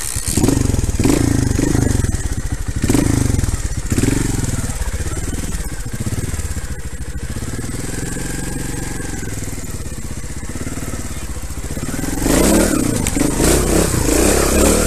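Trials motorcycle engine running under the rider, revved in several short throttle bursts over the first few seconds, then held steadier with its pitch rising and falling, and revved harder and louder near the end.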